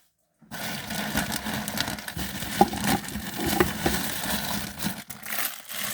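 Plastic packaging rustling and crinkling as items are handled and unwrapped, with many small clicks and a couple of short squeaks. It starts abruptly after a brief silence.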